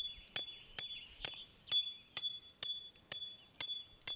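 Beefoor claw hammer striking a 12-inch steel tent stake into hard, compacted dirt: a steady series of about ten blows, roughly two a second, each with a bright metallic ring. The blows are at moderate force, about 60%.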